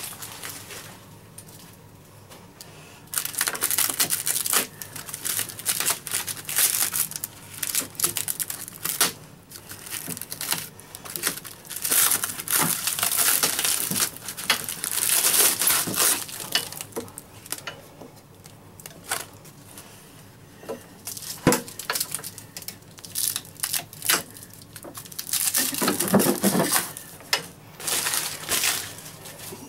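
Packaging crinkling and tearing in irregular bursts, with a few sharp clicks and knocks, as wrapping is pulled off the lower propeller unit of a kayak pedal drive.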